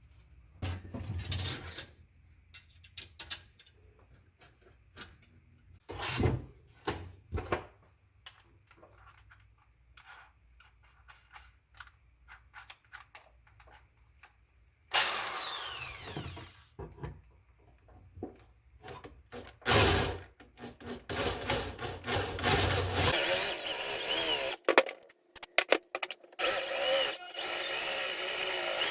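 Scattered knocks and clatter, then a small power tool, drill-like, running in spurts from about halfway through and more steadily near the end.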